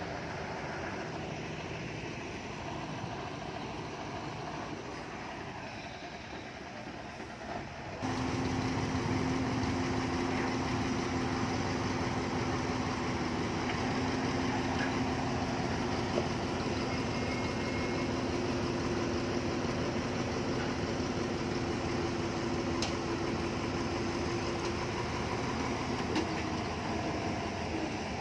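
Heavy diesel construction machinery engines running steadily. About eight seconds in the sound changes abruptly and grows louder, with a steady drone on top.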